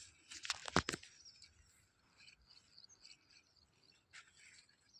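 A short burst of sharp knocks and clatter in the first second, followed by faint scattered bird chirps.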